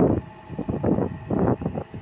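Komatsu PC75US mini excavator's diesel engine running as the bucket digs into a dirt bank, with loud, irregular rushing bursts of noise over it, about every half second to a second.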